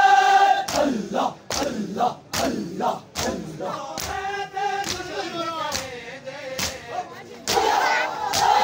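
Crowd of mourners doing matam: men striking their chests with their hands in unison, a sharp slap about every second. Between the slaps comes a noha chant. Near the end the crowd shouts together.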